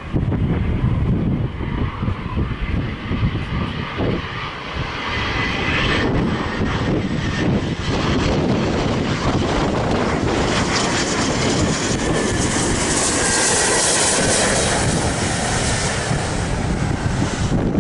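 Bombardier Global 6000 business jet's twin turbofan engines, with a high-pitched hiss that grows louder to a peak about 13 to 14 seconds in. Gusty wind buffets the microphone throughout.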